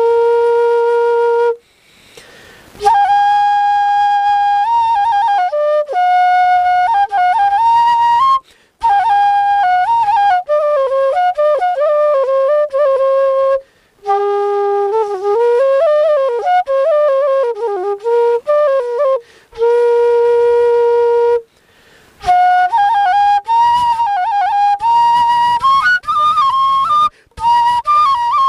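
Bansuri bamboo flute playing an old Nepali folk melody solo, with held notes and quick ornamented slides between them, in phrases separated by short pauses.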